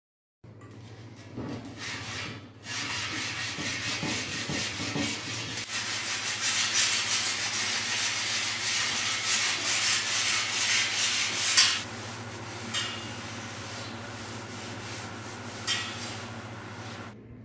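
Abrasive rubbing on a steel sword blade: a loud rasping that runs from about three seconds in to about twelve seconds in, then eases, over a steady low motor hum.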